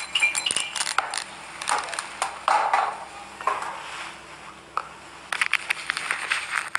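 Empty plastic water bottle crinkling and crackling as it is handled and squeezed: a dense run of sharp crackles and clicks.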